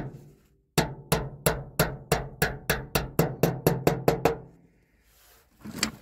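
A hammer nailing a corrugated metal sheet to a shed wall: a fast, even run of strikes, about four a second, with the sheet ringing under them. The run stops about four seconds in, and one more knock comes near the end.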